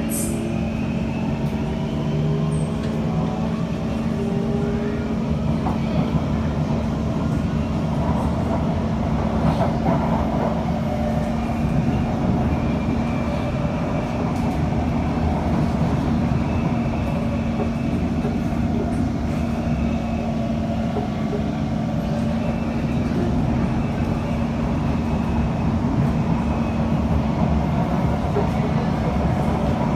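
C151 metro train with PMSM (permanent magnet synchronous motor) traction, heard from inside the car: the motors' whine rises as the train pulls away and gathers speed. It then runs on with steady wheel and rail noise and a constant low hum.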